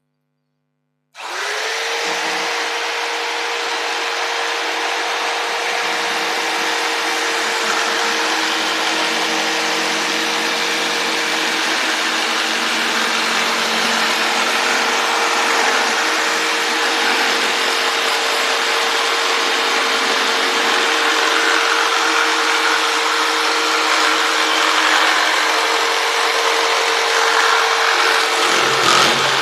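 Electric jigsaw starting up about a second in and then running steadily as it saws through wood along a curved line, a constant motor note under the rasping of the blade.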